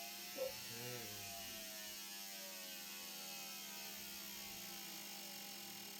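Fuel injector test machine running a simulation test: a steady electrical hum with faint pulsing from the injectors firing at a changing rate.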